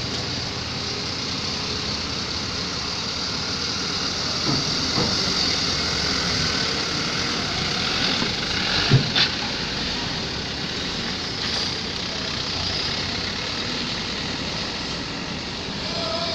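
Heavily loaded truck engines running steadily as trucks drive off a ferry. Two sharp knocks close together about nine seconds in.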